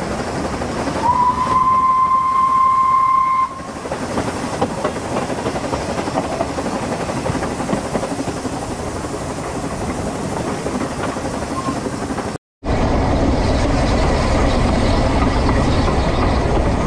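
Narrow-gauge steam locomotive Welsh Pony running along the line, heard from its tender as a steady running and rail noise. About a second in, its steam whistle sounds once: a single steady note held for about two and a half seconds. The sound cuts out for a moment about twelve seconds in, then resumes louder and lower.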